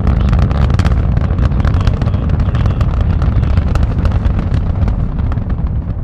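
Space Shuttle Columbia's two solid rocket boosters and three main engines during ascent: a loud, steady, deep rumble shot through with rapid crackling, heard from a viewing site a few miles from the launch pad.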